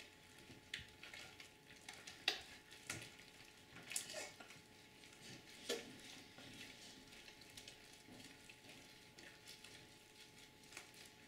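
Fluffy shaving-cream slime being kneaded and pulled by hand, giving faint sticky crackling and squishing with a few sharper snaps scattered through.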